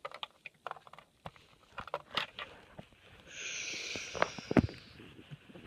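Handling noise: a fleece blanket rustling and Lego pieces giving scattered light clicks and taps. The rustle becomes a hiss for nearly two seconds in the middle, with two sharper knocks near its end.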